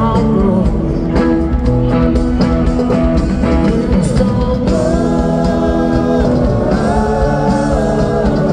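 A rock band playing live in a large venue: electric guitar over bass, drums and keys, with long held notes over the last few seconds.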